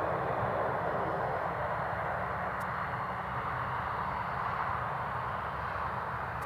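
Boeing 747 jumbo jet's four turbofan engines running steadily at low taxi power as the aircraft rolls along the runway: an even, continuous jet roar with a low hum beneath.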